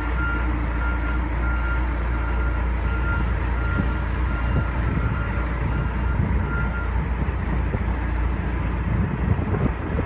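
1997 John Deere 410E backhoe loader's 4045T turbocharged four-cylinder diesel running as the machine reverses, with its backup alarm giving steady repeated beeps that stop about seven seconds in.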